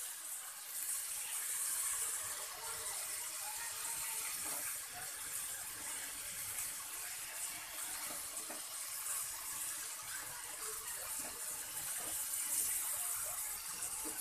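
Marinated chicken pieces sizzling steadily in hot oil on a flat pan as they are turned over with a metal spatula, with a few light scrapes and taps of the spatula on the pan.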